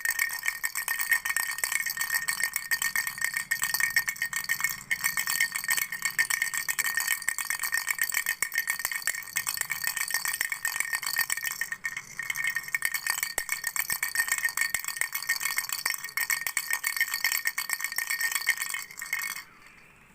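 Flower-shaped baby rattle shaken without pause, a dense rattling with a steady high ring running through it; it stops suddenly near the end.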